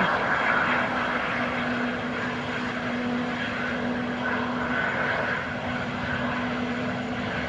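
Airbus A320neo's CFM LEAP-1A turbofan engines running at taxi power as the jet rolls along the taxiway: a steady engine noise with a constant low hum.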